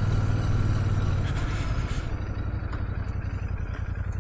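Royal Enfield Shotgun 650's 648 cc parallel-twin engine off the throttle as the bike slows to a stop. Wind and road noise drop away about two seconds in, leaving the engine's low, even pulsing beat near idle.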